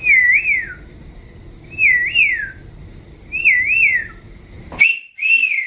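A child whistling a bird-like warbling call through pursed lips: three phrases about a second and a half apart, each bending up and down twice. Near the end there is a click, then one more short whistle.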